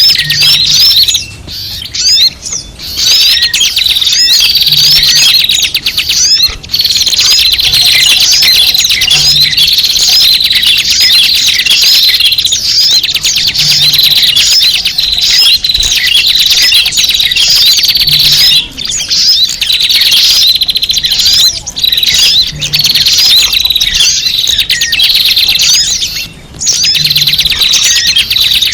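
Dense, loud chorus of many small birds chirping and twittering over one another without a break, a bird-lure (pikat) recording of noisy small birds.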